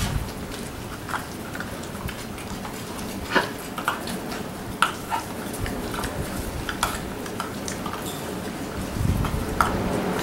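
Six-week-old Labrador Retriever puppies moving about and playing on a concrete floor: scattered short clicks and scuffles over a steady background hiss.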